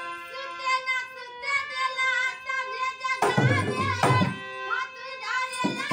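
A woman singing to harmonium accompaniment, the harmonium holding steady chords under her voice. About three seconds in a dholak joins with hand strikes in a steady beat.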